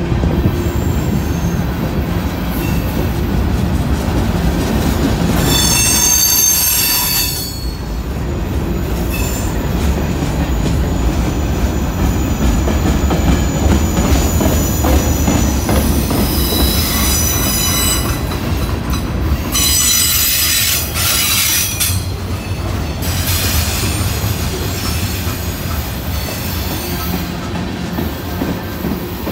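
Freight train cars, covered hoppers, boxcars and tank cars, rolling past close by with a steady rumble and clatter of wheels on rail. High-pitched wheel squeal rises over it about six seconds in and again several times in the second half.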